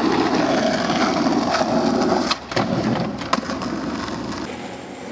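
Skateboard wheels rolling over wooden ramps: a loud rumble for about two seconds that then fades, with a couple of sharp clacks from the board.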